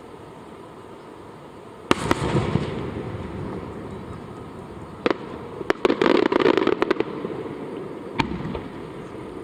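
Aerial fireworks shells bursting overhead: a sharp bang about two seconds in with a long echoing rumble after it, single bangs later on, and a quick run of crackling reports a little past the middle.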